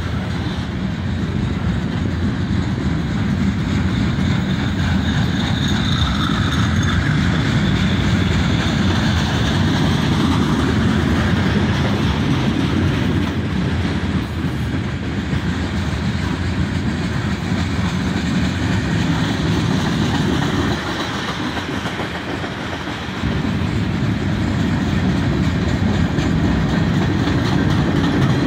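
Freight cars (tank cars, covered hoppers and pipe-loaded flatcars) rolling past close by: a steady, loud noise of steel wheels on the rails, briefly quieter about three-quarters of the way through.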